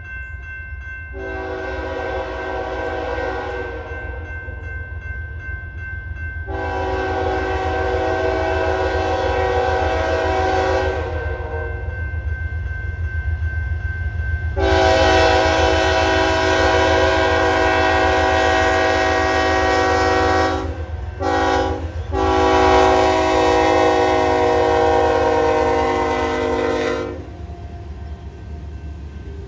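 Lead locomotive of a BNSF intermodal freight train sounding its multi-chime air horn: three long blasts, then a short blast and a final long one, over the low steady rumble of the approaching train.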